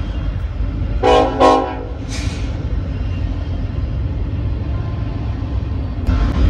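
Diesel-hauled double-stack container freight train rolling past with a steady low rumble. Its horn sounds two short blasts about a second in.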